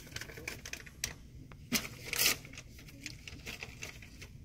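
Scattered small clicks and rustling of handling in a small room, with a louder rustle about two seconds in.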